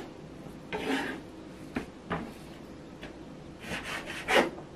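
Kitchen knife slicing round scad (galunggong) fillets on a plastic cutting board: about five separate cutting strokes, each blade stroke scraping and knocking on the board, the loudest near the end.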